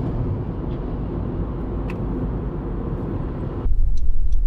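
Steady low rumble of a Honda CR-V Turbo driving at speed on a highway, tyre and engine noise heard inside the cabin. About three and a half seconds in it turns suddenly louder and deeper.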